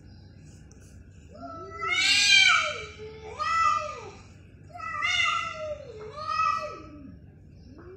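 Domestic cats yowling in a fight standoff: a run of long, wavering aggressive yowls that slide up and down in pitch, several in succession, the loudest about two seconds in.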